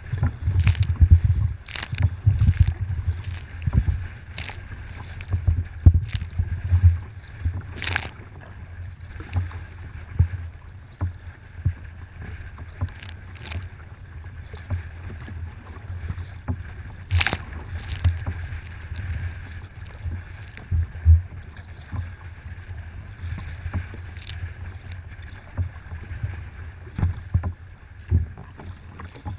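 Strong wind buffeting the microphone in a gusting low rumble, with choppy waves slapping and splashing against a kayak's hull in irregular sharp hits. The gusts are heaviest in the first eight seconds, and the biggest splashes come about 8 and 17 seconds in.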